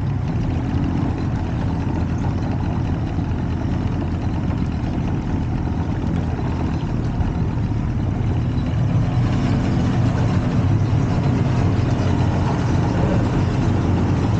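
Evinrude outboard motor running steadily at low speed, pushing a small jon boat. It grows a little louder about nine seconds in as the boat passes into a concrete culvert.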